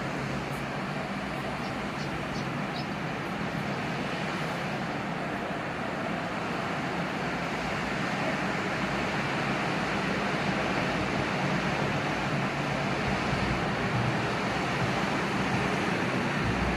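Steady rushing of sea surf, growing slightly louder over the second half, with a low steady hum beneath it.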